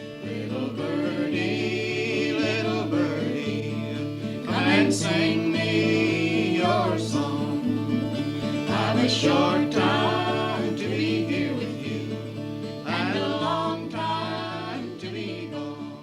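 Background music: a song with guitar and a singing voice over a steady bass beat.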